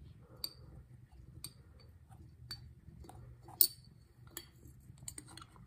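Small metal hook clinking and scraping against the inside of a glass flask as it pulls agar and orchid plantlets out: scattered light clinks, the loudest about three and a half seconds in.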